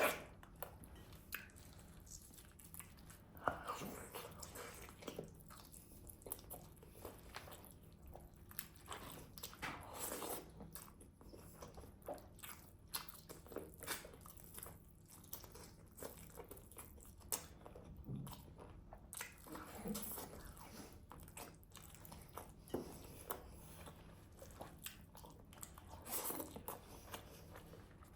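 Close-miked eating sounds: grilled chicken being bitten and chewed, with many short, irregular crisp clicks throughout.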